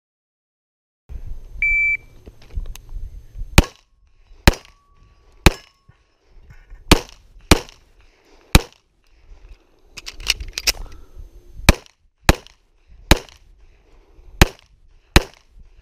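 A shot-timer start beep just under two seconds in, then a pistol firing about fourteen shots at an uneven pace, spaced half a second to a second and a half apart, as the shooter runs a practical pistol stage.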